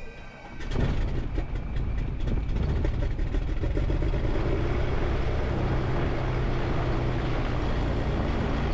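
The 1981 Piper Turbo Arrow IV's turbocharged Continental six-cylinder engine starting: it catches under a second in and then runs steadily at idle with the propeller turning, heard from inside the cockpit.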